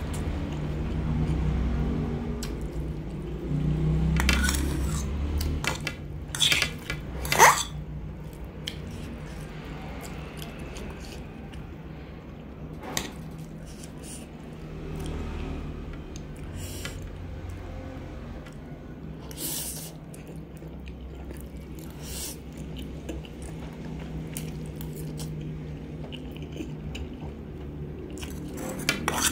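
A metal fork clinking and scraping against an aluminium pan as noodles are lifted and twirled, with chewing and slurping of the noodles, over a steady low hum.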